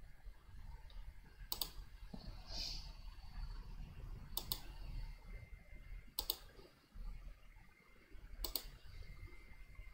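Computer mouse button clicking four times, a few seconds apart, each click a quick pair of sharp snaps (press and release), over a faint low rumble.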